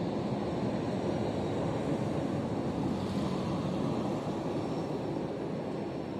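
Wind buffeting the microphone: a steady low rumbling noise with no distinct events.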